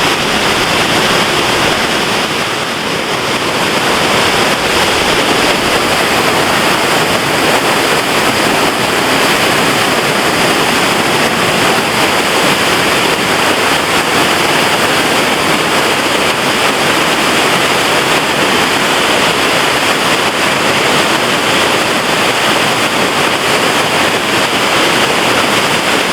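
Waterfall pouring loudly in high spring flow: a steady, unbroken rush of water.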